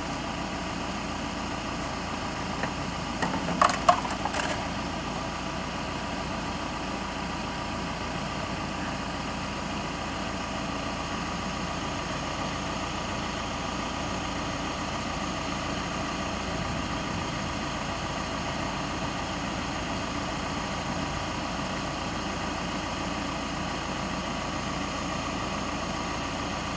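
A small gasoline engine idling steadily, with a few knocks about three to four seconds in.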